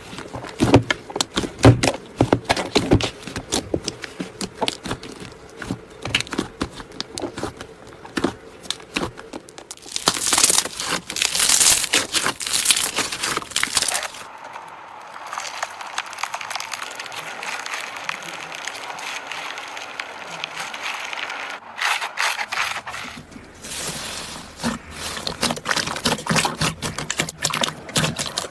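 Slime being squeezed, poked and stretched by hand: dense runs of sticky clicks and crackles, turning into a steadier hiss for several seconds about halfway through, then clicking again near the end.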